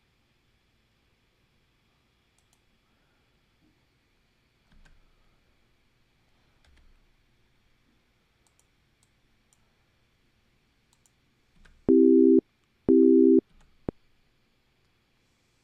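A software synthesizer instrument in Logic Pro sounds two short, loud, steady buzzy notes about half a second apart, each starting and stopping abruptly, after several seconds of faint mouse and keyboard clicks.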